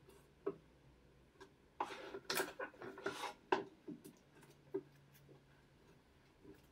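Cut alligator leather pieces and a small tool being handled on a cutting board: scattered light taps and clicks, with a stretch of rubbing and scraping from about two to three and a half seconds in, ending in a sharper tap.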